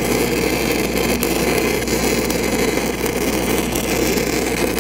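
Stick-welding arc of a 6010 downhill rod running the root pass on a pipe joint: a steady, dense crackling hiss.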